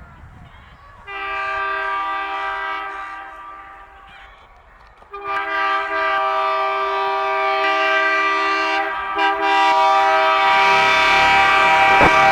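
ALCo diesel locomotive's high-pitched two-note air horn: one blast of about three seconds, then a longer blast with a brief break in it, as the train comes into the station. The running noise of the approaching train rises near the end.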